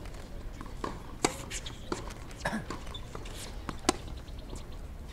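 Tennis practice rally: sharp pops of tennis balls struck by rackets and bouncing on a hard court, the loudest about a second in and again near four seconds in, with fainter bounces and footfalls between.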